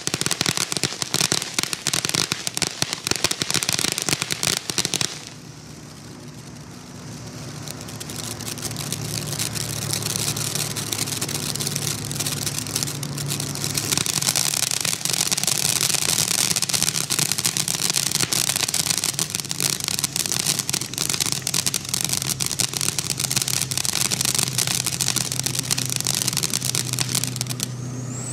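Black Cat Bug Zapper ground fountain spraying sparks with dense crackling. The crackle drops to a softer hiss about five seconds in, then builds back into a steady crackling hiss. A steady low hum runs underneath from about eight seconds on.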